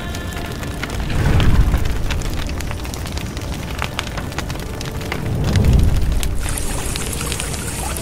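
Cinematic background music: deep booming swells rise and fade about every four seconds over a steady crackling patter like rain.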